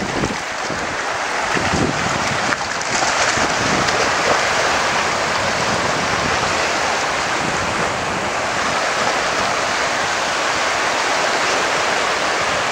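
Small waves breaking and washing in over shallow water on a sandy shore, a steady rushing.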